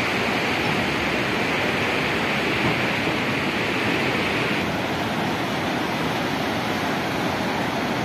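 The Kunhar River's whitewater rushing over rocks in a steady, even noise. Its higher hiss eases slightly a little over halfway through.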